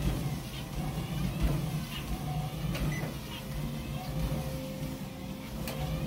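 A low, steady motor hum, like an engine running, with faint short high chirps scattered over it.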